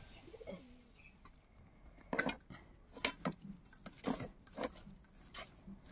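About half a dozen short, light clicks and taps of stainless-steel plates and bowls, irregularly spaced.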